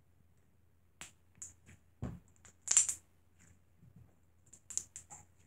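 Fingers poking and squishing soft slime against a tabletop, giving scattered short crackles and pops, with a soft thump about two seconds in and the loudest crackle just after.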